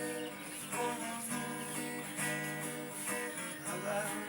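Acoustic guitar strummed, its chords ringing in an instrumental passage of a song with no singing.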